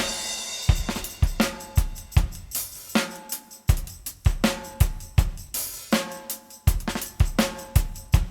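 Music driven by a drum kit: a steady beat of kick and snare hits with hi-hat, and cymbal crashes about two and a half and five and a half seconds in.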